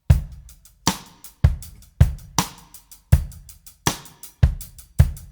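Intro music: a drum-kit beat of bass drum, snare and hi-hat hits at a steady tempo, without other instruments.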